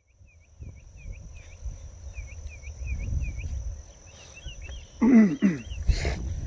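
Birds calling: a quick run of short repeated chirps, then a different chirping from about four seconds in. A loud call falls in pitch about five seconds in. Wind rumbles on the microphone throughout.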